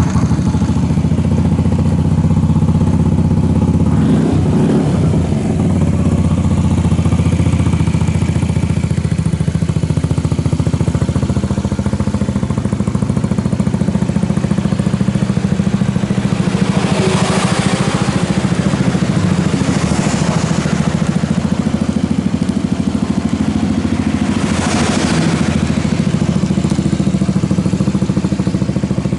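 Honda Smart Dio AF57 scooter's small single-cylinder engine starting and running steadily after its carburettor has been cleaned, with a few short noisy bursts over the engine in the second half.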